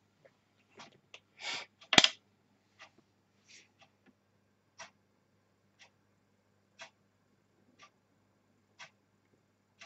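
A small plastic pot of embossing powder handled, with a short rustle and then a sharp click about two seconds in as its lid comes open, the loudest sound. After that only faint, evenly spaced ticks, about one a second, while the powder is poured.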